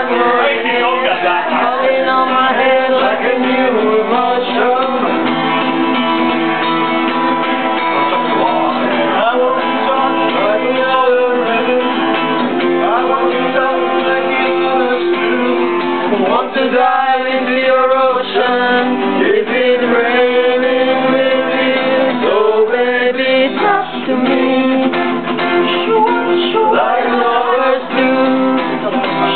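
A man singing to his own strummed guitar accompaniment.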